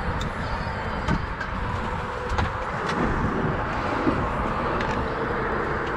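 Steady wind rumble on the microphone, with a few faint clicks about a second and two seconds in.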